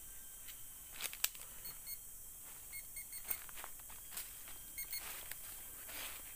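Metal detector pinpointer giving short high beeps in quick groups of three or four, several times, as it is passed over soil holding a metal target. Sharp clicks near the start and rustling of dry leaves and earth being handled.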